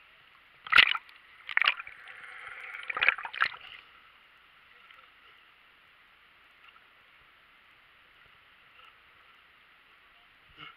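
Water slapping and gurgling against a waterproof action camera bobbing at the surface: four sharp splashes and a short swell of sloshing in the first four seconds, then only a faint steady hiss.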